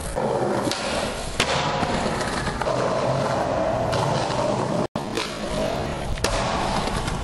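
Skateboard wheels rolling on concrete, a steady gritty rumble, broken by a few sharp clacks of the board hitting the ground. The sound cuts out for an instant about halfway through.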